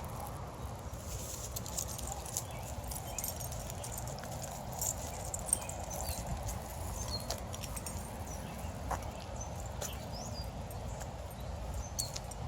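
Footsteps of a person and dogs walking, a steady patter of small clicks, over a low steady rumble of wind or handling noise.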